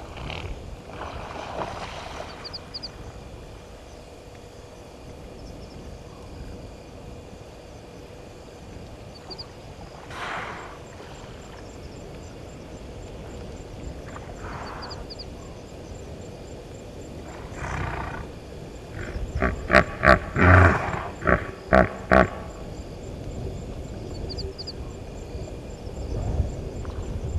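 Hippopotamus honking: a burst of loud, rapid grunting honks lasting about three seconds, after some softer breathy calls.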